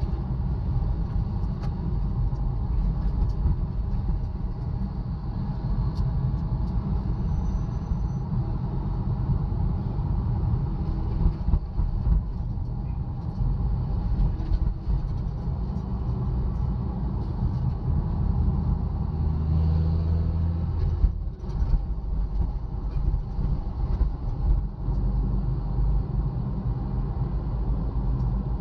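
Steady low rumble of motor vehicles running in heavy road traffic, with a louder low surge about twenty seconds in.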